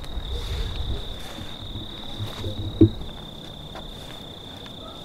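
Crickets trilling in one continuous, steady high note, over low rumbling thumps, with a single sharp knock about three seconds in.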